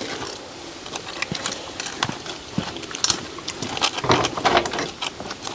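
Clams crackling on a charcoal grill, with scattered sharp clicks of scissors and shells as clam meat is cut on the grill grate.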